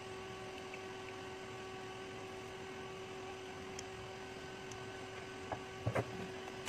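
Steady low electrical hum. A few light clicks and taps come near the end.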